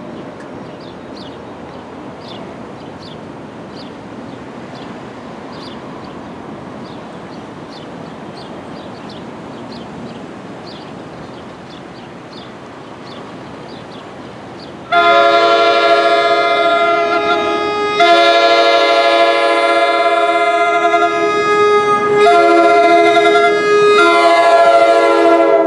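Steady background rumble with a crossing bell ticking faintly under a second apart. A little past halfway, the horn of an approaching NJ Transit commuter train sounds loudly as a multi-tone chord, in the grade-crossing pattern: two long blasts, a short one and a long one.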